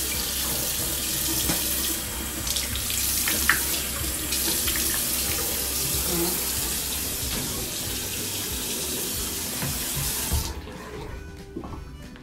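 Water running from a tap into a sink in a steady rush, shut off about ten and a half seconds in.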